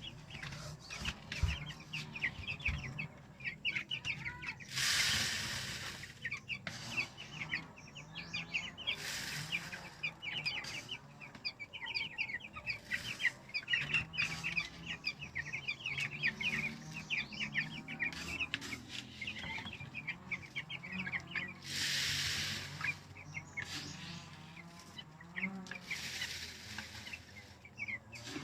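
Two-week-old broiler chicks peeping and chirping continuously as a flock. Four short rushing hisses, about a second or more each, cut through: feed pellets being poured into their feeder.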